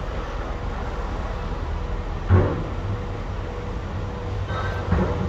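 Ferry-port ambience: a steady low rumble with a car driving along the quay, broken by a dull thump about two seconds in and a smaller one near the end.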